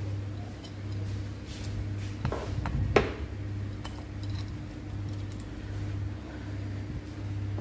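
A few light metallic clinks of engine parts and hand tools being handled, the sharpest about three seconds in, over a steady low hum.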